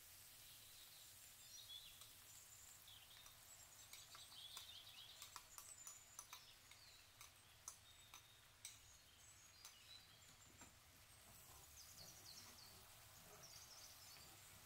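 Very faint popping and crackling of masala frying in hot mustard oil, with short sharp pops clustered in the middle, around when wet mustard paste goes into the pan. Faint high chirps sound now and then over a low hiss.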